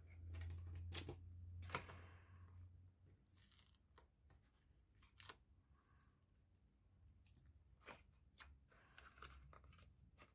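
Faint paper-craft handling: strips of double-sided tape having their backing peeled off and being pressed onto cardstock, with a few small sharp clicks and taps, the sharpest about two seconds in, and a brief peeling hiss a little later.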